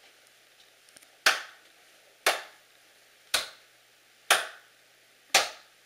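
Five sharp, evenly spaced impacts, about one a second, each with a short fading tail.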